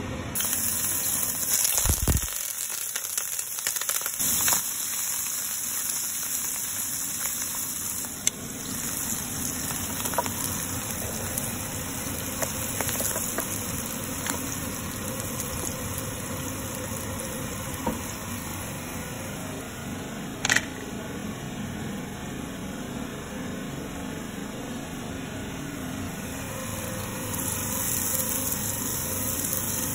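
Sliced mushrooms and chopped garlic sizzling in olive oil in a frying pan, a steady hiss, with a few sharp clicks from the wooden spoon and pan, the loudest about twenty seconds in.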